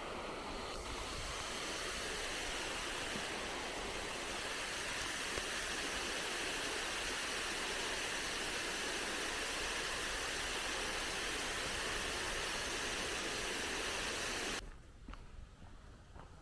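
Rushing creek water, a steady even rush, that cuts off suddenly near the end, leaving a few faint ticks.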